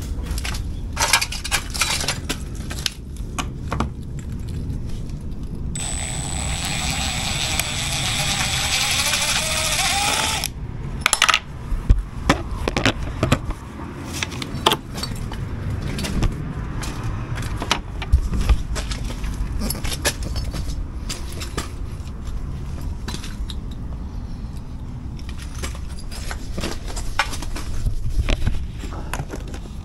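Clicking, knocking and scraping of hand tools and a cordless drill-driver on a uPVC window frame as its fixings are taken out for removal. A steady whirring runs for about five seconds from around six seconds in, and a few sharp knocks come just after it.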